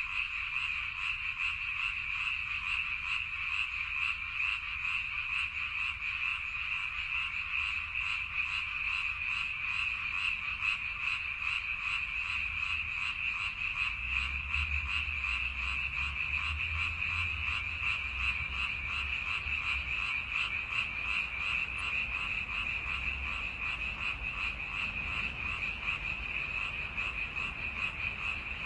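A dense chorus of many frogs croaking continuously, a steady high-pitched pulsing din without a break. A faint low rumble sits underneath through the middle.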